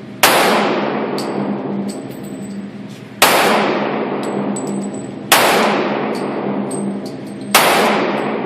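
Four shots from a .40 caliber pistol, two to three seconds apart, each sharp crack trailing off in a long echo. Light metallic clinks come between the shots, and a steady low hum runs underneath.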